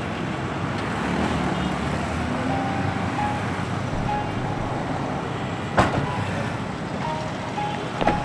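Steady roadside traffic noise. About six seconds in, a single sharp thud as a car's rear hatch is pulled down and shut.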